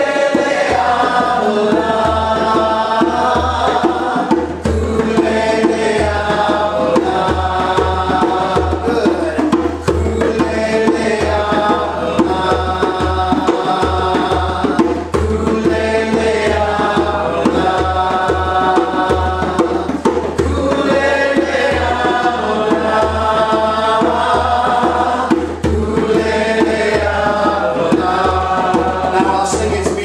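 Djembe hand drum beating a steady rhythm under voices chanting a short sung phrase, repeated over and over.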